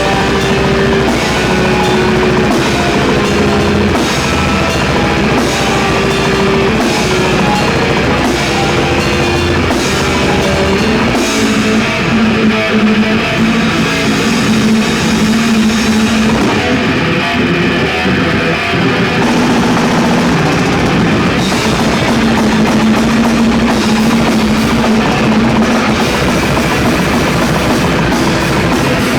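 Live heavy metal band playing loud, with distorted guitars, bass and a pounding drum kit, and no vocals. The texture shifts partway through.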